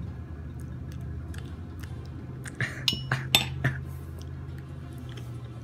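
A metal spoon clinking several times against a dish, sharp clinks with a short ring, bunched together about two and a half seconds in.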